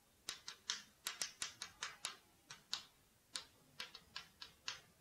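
Chalk writing on a chalkboard: a quick, irregular run of short taps and scratches as each stroke of the characters is made.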